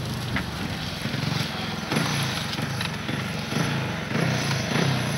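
Motorcycle engine running as the bike rides across lake ice.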